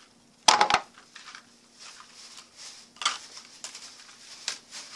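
Cardboard candy boxes handled and set down on a wooden tabletop: a loud clatter of knocks about half a second in, then lighter knocks and handling rustle around three and four and a half seconds.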